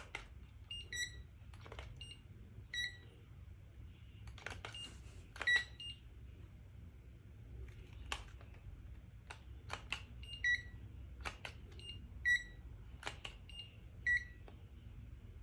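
Two handheld digital thermometers beeping as readings are taken, short high beeps at two slightly different pitches recurring every second or two, with sharp clicks of their trigger buttons between them.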